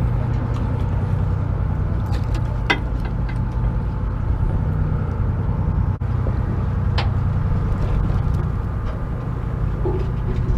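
Fishing boat's engine running with a steady low drone, broken by a few sharp clicks about three seconds in and again about seven seconds in.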